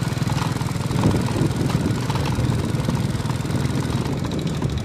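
Small motorcycle engine running steadily at low speed, with an even pulsing beat.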